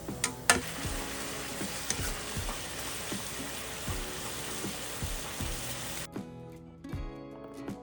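Food sizzling as it fries in a pan, with a sharp click about half a second in, over background music with a steady beat. The sizzling cuts off suddenly about six seconds in, leaving only the music.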